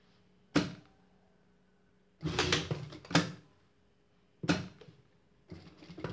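Siruba industrial straight-stitch sewing machine stitching in short start-stop runs, about four in a few seconds, over a faint steady motor hum.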